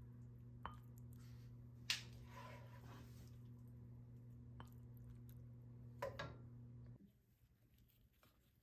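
Faint, steady low hum with a few soft clicks and taps, one sharper click about two seconds in and a couple more near six seconds; the hum cuts off about seven seconds in.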